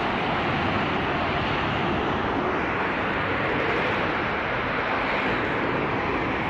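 Steady, even roar of a large gas fire burning from a ruptured gas pipeline.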